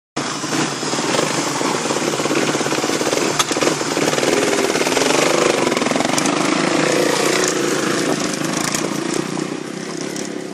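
Kawasaki motocross bikes' engines running, revving up as the riders pull away and fading toward the end.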